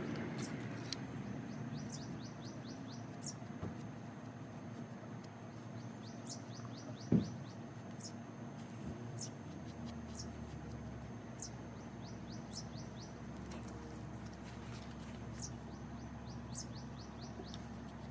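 A songbird singing short phrases over and over, each a high note followed by a quick run of falling notes, about once every second or two. A steady high pulsing insect call runs underneath, and there is a single sharp knock about seven seconds in.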